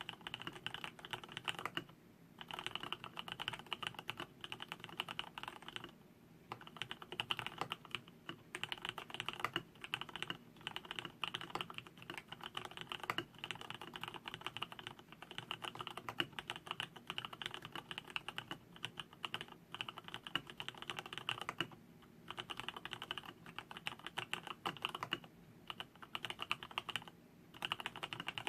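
Continuous typing on a custom acrylic mechanical keyboard with Cherry MX Black linear switches (lubed, stock 62 g springs), an acrylic plate and PBT keycaps: rapid runs of keystrokes broken by short pauses every few seconds.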